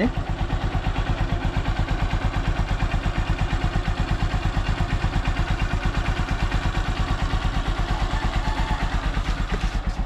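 Honda TMX Supremo's air-cooled single-cylinder four-stroke engine idling evenly and very quietly, warmed up after a cold-morning kick start with the choke pushed back in.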